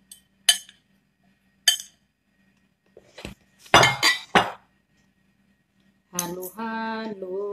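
Metal spoon clinking and scraping against bowls while chicken and macaroni are tipped in and stirred: a few sharp clinks in the first two seconds, then a louder cluster of knocks and scrapes around the middle. Near the end a woman's voice starts singing in long held notes.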